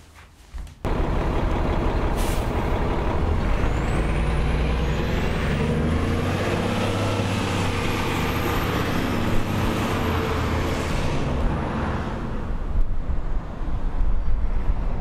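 City transit bus engine running at a stop, starting abruptly about a second in, with a short air-brake hiss about two seconds in and a high whine rising in pitch a few seconds later.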